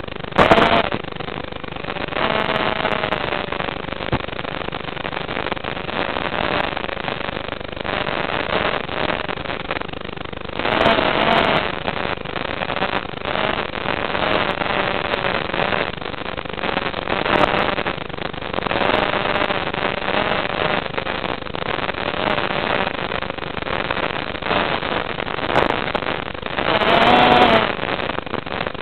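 FPV quadcopter's motors whining over a steady hiss, their pitch wandering up and down with the throttle. A sharp loud surge comes right at the start, and louder swells come about eleven seconds in, about seventeen seconds in, and near the end.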